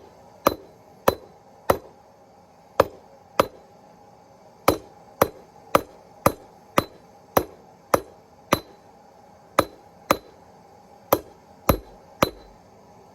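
Hand hammer striking hot rebar on a steel anvil, about eighteen blows at roughly two a second with a few short pauses, each blow ringing metallically.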